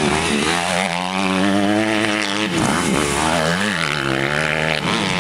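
Motocross dirt bike engine revving hard, its pitch dropping and climbing again a few times as the throttle is shut and reopened.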